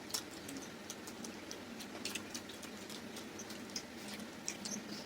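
Eating sounds: scattered soft clicks and smacks of mouths chewing luchi with chicken curry, irregular throughout.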